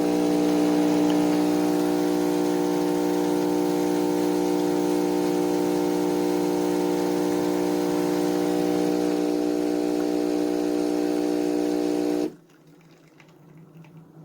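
De'Longhi ESAM3300 Magnifica super-automatic espresso machine running with a steady hum, then cutting off suddenly about twelve seconds in.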